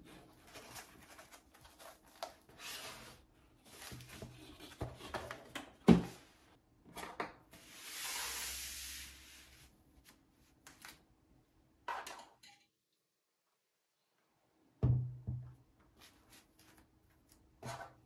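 Foam keycap trays and a cardboard box being handled on a table: rustling and scraping with sharp knocks as trays are set down, and a longer sliding scrape about eight seconds in. A heavier thump about fifteen seconds in.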